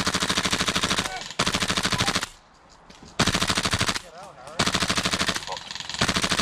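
Airsoft rifle firing on full auto in several short bursts of rapid, evenly spaced shots, with brief pauses between bursts. The rifle is a Tokyo Marui MWS gas-blowback rifle running on HPA through an Airtac adapter.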